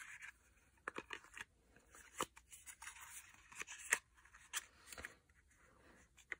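Faint rustling and scattered clicks of a thin paperboard cosmetic box being handled, with a squeeze tube of primer put back into it and the box closed and set down.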